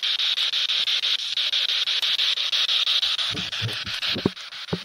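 Radio-scanning spirit box hissing in rapid, even, choppy pulses, about ten a second, as it sweeps through stations in answer to a question put to the spirits. A few brief low fragments of sound come through about three seconds in.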